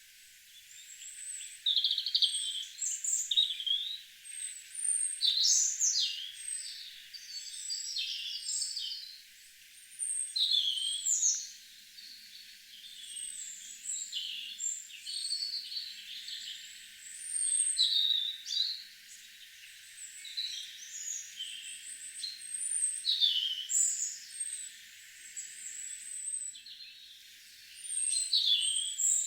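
Several songbirds singing and calling together in a garden: overlapping high chirps, trills and whistled phrases in bursts every second or two, over a faint steady hiss.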